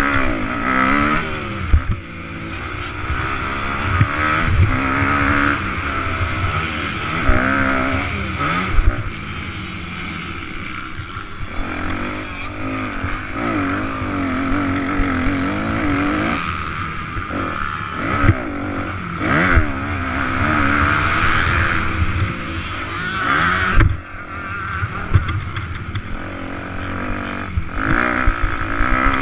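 Motocross dirt bike engine revving up and down over and over as the bike is ridden hard around the track, heard close from the onboard camera with wind noise over it and a few sharp thumps from bumps.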